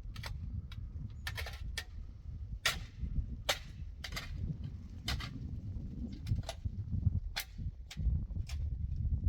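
Irregular sharp knocks and clicks, roughly one or two a second, over a steady low rumble.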